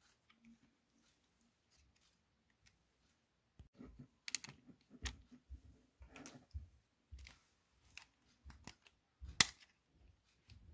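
Irregular plastic clicks and small snaps as the plastic housing parts of a Braun Series 5 electric shaver are handled and pried loose, starting after a few quiet seconds, with the loudest click near the end.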